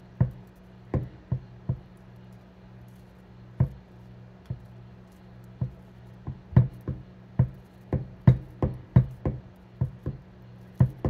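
Metal fork tines knocking against a wooden cutting board as cooked seitan is broken into crumbles. A few scattered taps at first, then quicker, about three a second, from about six seconds in.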